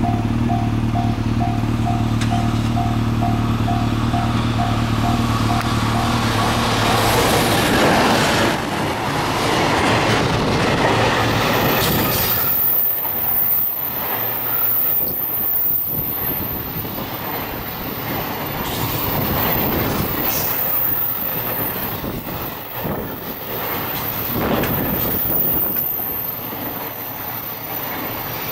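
EF210 electric locomotive and its long string of container wagons passing close by: the locomotive goes by loudly about eight seconds in, then the wagons keep rolling past with a rumble and a regular clatter of wheels over the rails.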